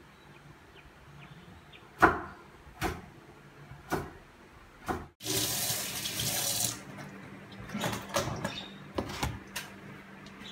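Kitchen handling sounds: four sharp knocks over about three seconds, then a kitchen tap running for about a second and a half, then several lighter clicks and knocks.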